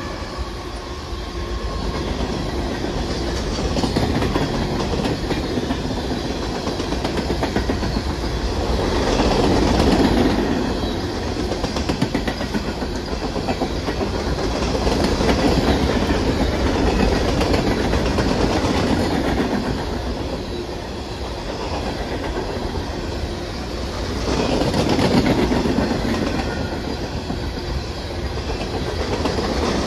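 Railroad cars rolling past on the track: a steady rumble of steel wheels on rail with clickety-clack over the joints, swelling and easing every few seconds.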